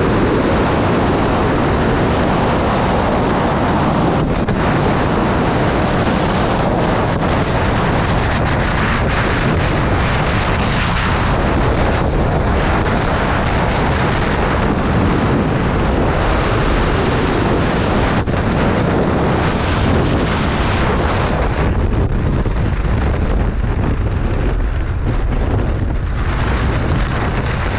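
Freefall wind rushing across a skydiver's camera microphone: a loud, steady roar of wind noise.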